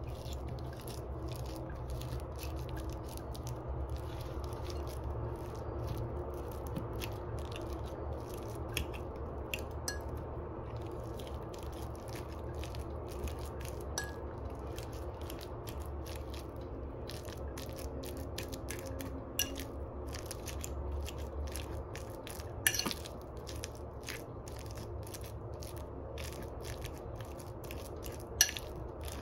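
Kitchen food preparation: irregular small crackles and clicks over a steady low hum, with two louder clicks, one about two-thirds through and one near the end.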